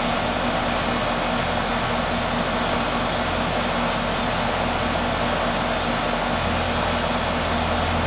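Home air conditioner's outdoor unit running steadily in cooling mode, its compressor and condenser fan giving an even noise with a low hum that grows a little louder about six seconds in. Over it come short high beeps from a handheld HVAC calculator's keypad as a value is keyed in: a quick run of them in the first few seconds, then two more near the end.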